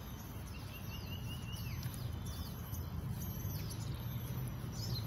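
Wild birds chirping outdoors: a few short calls that sweep downward in pitch, and one longer wavering call about a second in, over a steady low background rumble.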